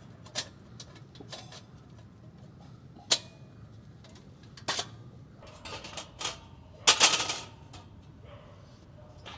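A folding metal fire pit being unfolded and set up: scattered metal clicks and clanks, with a louder clattering rattle about seven seconds in.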